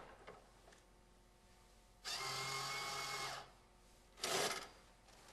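Electric motor of an enMotion automatic touchless paper towel dispenser running steadily for about a second and a half, feeding out a towel. About a second after it stops there is a short rip as the sheet is torn off.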